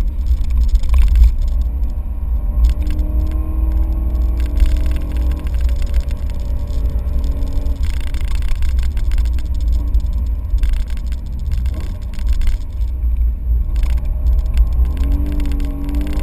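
Inside the cabin of an E90 BMW M3 CRT at speed on track, heard through an in-car GoPro: a heavy low rumble of road and wind noise over the V8's engine note. The engine note rises as the engine revs, around three seconds in and again near the end.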